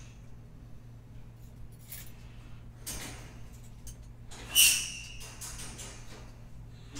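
Light clicks and knocks of things being handled off-camera, with one short, loud squeak about four and a half seconds in, over a steady low electrical hum.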